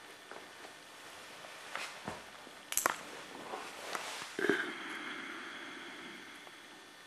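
Light clicks and clinks of a cat's metal toy and collar chain knocking on a tile floor during play, the loudest about three seconds in; a sharper clink at about four and a half seconds rings on and fades over a second or two.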